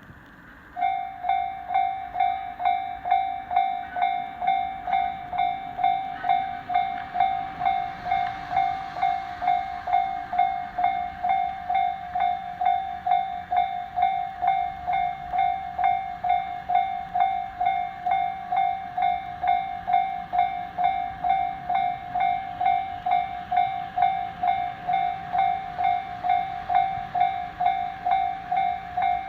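Japanese railway level-crossing warning bell starting about a second in and ringing steadily at about two strokes a second. Under it, a passing train's running noise swells and fades around the middle.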